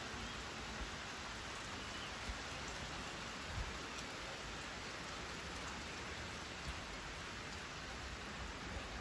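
Steady rain falling, a continuous even hiss, with a few soft low thumps now and then.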